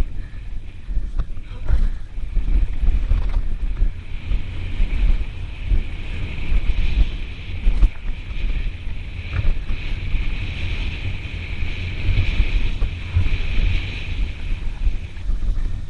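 Mountain bike riding fast down a dirt trail: wind buffeting the camera microphone, and the tyres and bike rattling and knocking over the bumps. A steady high buzz comes in about four seconds in and fades out near the end.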